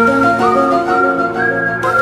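Music: a flute-like melody of held notes, each sliding into the next, over a sustained chord.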